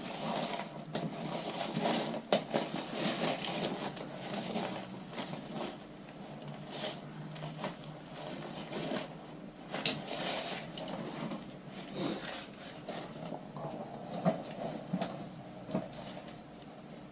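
Workbench handling noise while gluing golf club heads: irregular scraping and rustling, with a few sharp clicks and taps scattered through.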